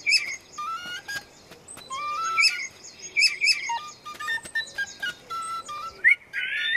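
Cartoon bird chirping in short, repeated tweets over a light music score of stepped, hopping notes, with small ticks in between. Near the end the bird gives a rising, squeaky call.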